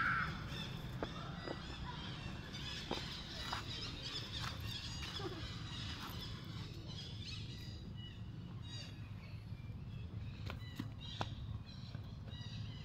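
Outdoor ambience: a steady low rumble with faint high chirping calls and scattered light clicks.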